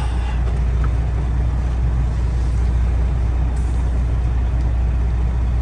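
Freightliner Classic XL semi truck's diesel engine running steadily at low speed, a deep drone heard from inside the cab.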